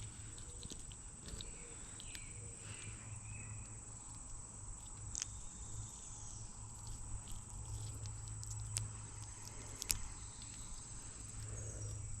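Faint outdoor ambience with a steady high-pitched insect drone and a low steady hum. Scattered small clicks and taps run through it.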